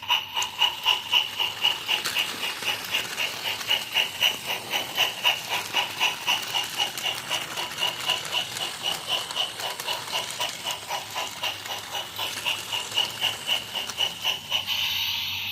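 Remote-control toy Thomas engine running in reverse on plastic track, its sound unit playing a steady steam-chuffing effect of about three to four chuffs a second.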